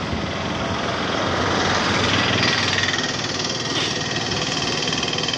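Tractor diesel engine idling with a steady clatter, growing a little louder about two seconds in.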